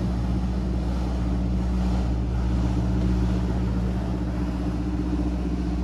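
Motorboat engine running steadily out on the lake, a constant low drone.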